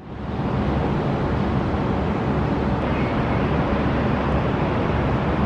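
Steady rushing rumble, heaviest in the low end, fading up over the first half-second and holding level with no speech or music.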